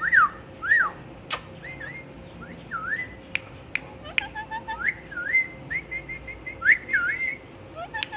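Pet parrot whistling: a string of short whistles that swoop up and down in pitch, with a few sharp clicks in between.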